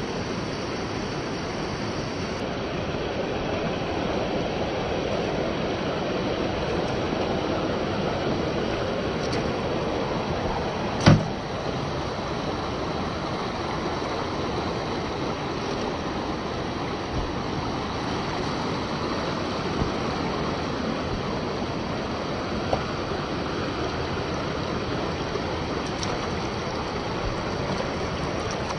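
Steady rushing of a waterfall and stream. A single sharp knock about eleven seconds in, with a few faint clicks later.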